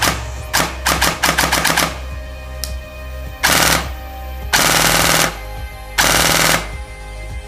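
Systema PTW airsoft M4 with a standard sector gear, run on an 11.4 V LiPo, firing: a quick run of sharp shots over the first two seconds, then three full-auto bursts of about half a second to under a second each. The rate of fire is very high.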